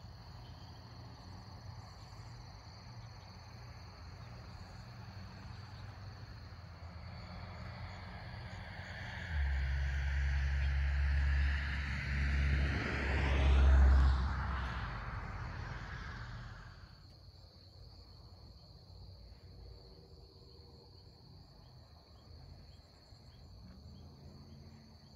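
Steady high-pitched insect chorus, crickets or katydids, with a vehicle passing on a road: it swells from about a third of the way in, is loudest a little past halfway, then fades away.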